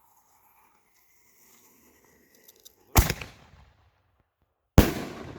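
Two loud, sharp bangs from a Winda Heavyweights aerial firework shell, a little under two seconds apart, the second trailing off in a rolling echo.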